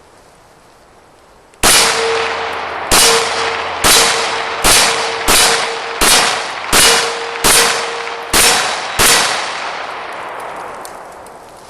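About ten shots from a Glock 17 9mm pistol, fired at a fairly quick uneven pace starting a couple of seconds in, with a steel gong target ringing on a steady tone from the hits. The ring and echo fade away after the last shot.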